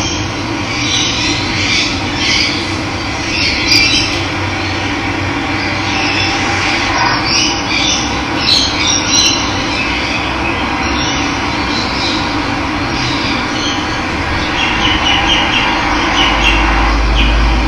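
Steady rush of running water with birds chirping and calling over it at intervals. A brief deep rumble sounds near the end.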